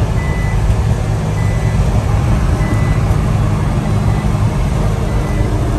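The cab of a 1989 Suzuki Carry kei truck at highway speed: the 550cc supercharged engine and road noise drone steadily, while the speed-alarm chime sounds short high beeps every second or so, the warning that the truck is over the speed limit it is set for.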